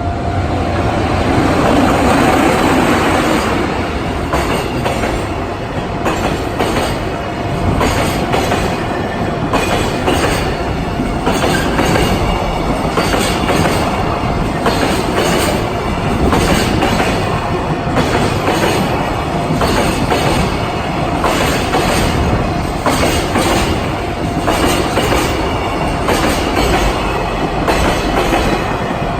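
Freight train hauled by an EF66-100 series electric locomotive running past at a level crossing: the locomotive passes loudest about two seconds in, followed by a long run of wagon wheels clicking over the rail joints.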